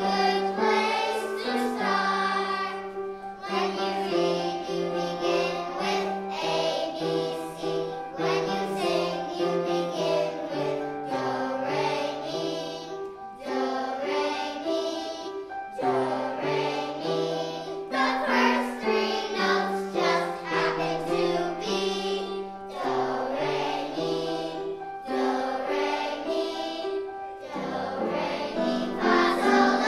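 A choir of young children singing a song together, in phrases with short pauses between them.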